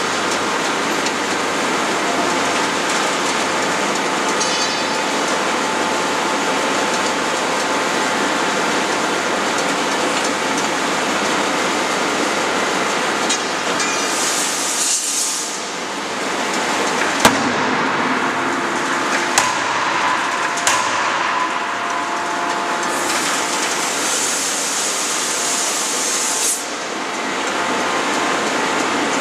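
16-ton hydraulic closed-die forging hammer striking a hot billet: three sharp blows a little past the middle, the first the loudest. Two long bursts of hissing, one just before the blows and one a few seconds after, sit over a steady machinery din.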